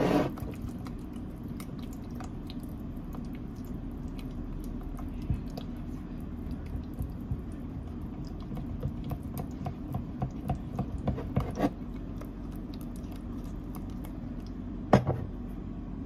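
A spatula stirring a thick creamy dressing in a ceramic mug: soft, squishy mixing with small irregular taps against the mug, busiest in the middle. A knock at the very start and a sharper single knock about fifteen seconds in, over a steady low hum.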